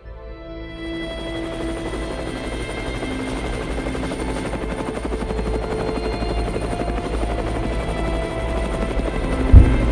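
Cinematic soundtrack with a helicopter-like rotor rumble. It fades in and builds under sustained music tones, and a heavy boom lands near the end.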